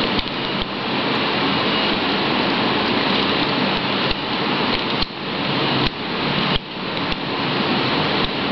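Steady loud hiss of background noise with several sharp clicks scattered through it, from a slider phone being handled and slid open and shut.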